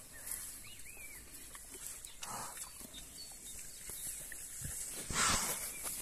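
A pig rooting with its snout in leafy weeds, rustling the plants, with two louder noisy bursts: a brief one a little over two seconds in and a stronger one about five seconds in.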